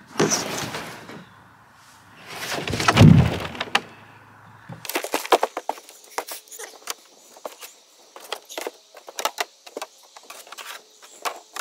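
A black rigid preformed plastic pond being set into its hole and stood in: rustling, then a heavy thump about three seconds in, followed by a long run of sharp knocks and scuffs against the plastic shell.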